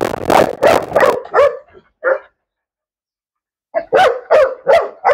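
A dog barking: a quick flurry of barks, a pause, then a run of about five barks near the end, roughly three a second.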